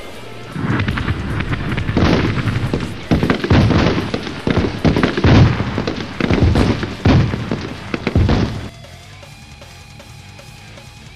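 Action-film sound effects of gunfire and explosions: a fast, irregular run of loud bangs and booms over a music track. They stop suddenly near the end, leaving only quieter music.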